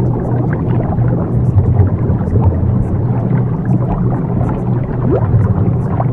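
Subliminal affirmation audio: a steady low drone, the track's delta-wave frequency layer, under a dense, muffled wash of noise, with a brief rising sweep about five seconds in.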